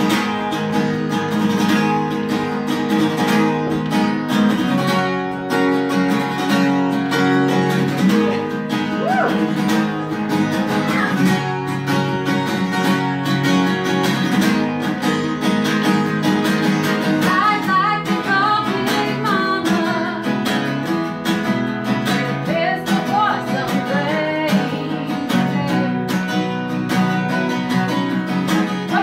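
Live acoustic music: a steel-string acoustic guitar strummed steadily, with a voice singing over it in places, most in the second half.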